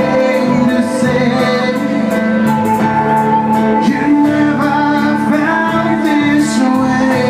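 Live band music led by electric keyboard with a steady bass line and held notes, with a man singing into a microphone.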